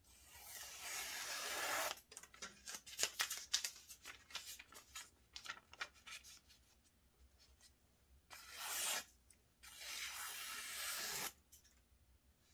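Gyuto chef's knife blade slicing through paper, testing the edge: a long cut through thin card at the start, a run of short crackling snicks, then two more long slices through newspaper near the end.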